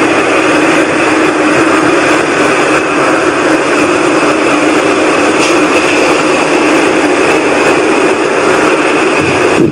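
Loud, steady whooshing rumble in the sky, a low drone with a higher hiss over it, the kind of sound reported as 'strange sounds in the sky'; the recordist insists it is not aircraft noise.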